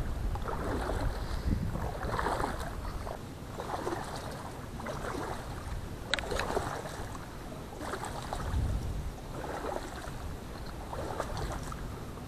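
Water sloshing and reed stems swishing against someone pushing through a flooded reed bed, in a steady rhythm of about one stroke every second and a half, with a single sharp click about six seconds in.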